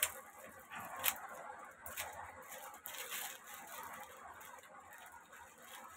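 Small plastic packet being torn open and crinkled by hand, with a few sharp snaps in the first two seconds, then softer rustling that fades.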